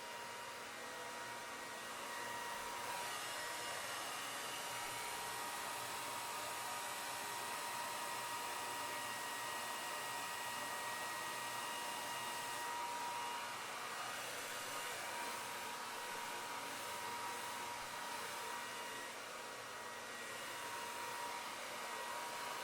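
Electric hair dryer running steadily: a rush of blowing air with a motor whine. It gets louder about two seconds in and dips a little a couple of times after that.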